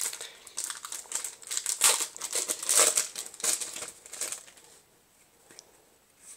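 Foil wrapper of a Yu-Gi-Oh! booster pack crinkling as it is torn open by hand and the cards are pulled out. The crinkling stops about four and a half seconds in.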